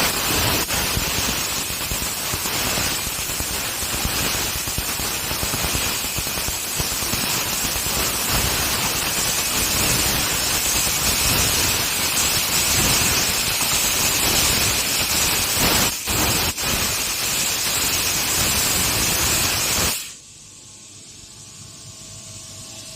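6 kW laser cutter cutting 14-gauge stainless steel with compressed-air assist gas: a loud, steady hiss from the air jet at the cut, dipping briefly twice about 16 s in. It cuts off suddenly about 20 s in, leaving a faint steady machine hum.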